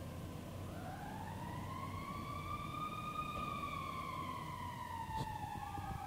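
Fire apparatus siren in a slow wail, its pitch rising over about two seconds and then falling slowly, with a low rumble under it that fades about two seconds in.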